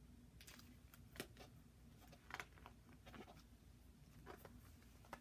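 Faint rustling and a few soft taps from picture book pages being handled and turned.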